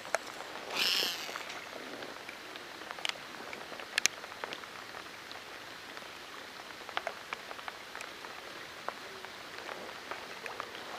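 Steady rain falling on a river surface, a soft even hiss with scattered raindrop ticks. A brief louder hiss comes about a second in, and two sharp ticks near three and four seconds in.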